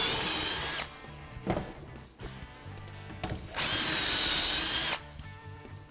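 Drill boring pocket holes through a Kreg micro pocket-hole guide into half-inch plywood: a high, steady whine that stops just under a second in, then a second hole drilled for over a second from about three and a half seconds in.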